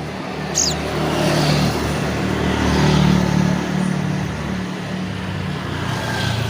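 A motor vehicle's engine passing by, its hum growing louder to a peak about halfway through and then fading. A short high chirp sounds about half a second in.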